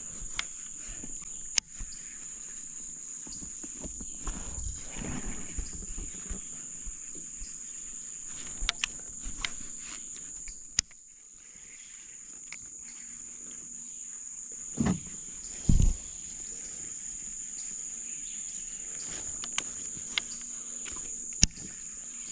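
Steady, high-pitched drone of insects, with scattered sharp clicks and a few dull knocks from handling fishing gear in a kayak while a hooked bass is played.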